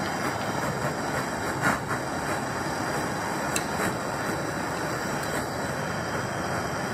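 Handheld propane torch burning with a steady hiss as its flame heats the press-fit pinion gear on a drill motor's shaft to loosen it. A few light metal clicks as a wrench is set against the gear, the loudest about two seconds in.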